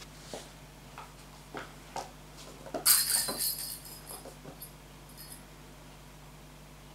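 Kitten playing with a hanging toy on a bare wooden floor: light taps and knocks of paws and the toy. About three seconds in comes a loud, clinking rattle, which fades to a few faint clinks.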